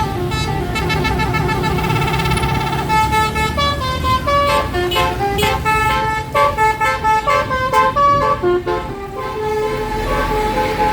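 A bus's Basuri telolet horn, a multi-note musical air horn, playing a tune over the low rumble of the engine. It starts on held notes, then runs through quick short notes that step up and down in pitch, and ends on a held note.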